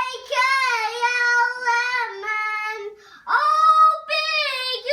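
A young child singing wordlessly in a high voice, with long held, wavering notes and a short break about three seconds in.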